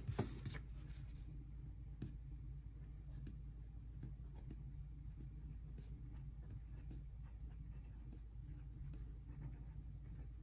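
Crayola felt-tip marker writing on paper: faint scratching strokes over a steady low hum, with a slightly louder rustle right at the start.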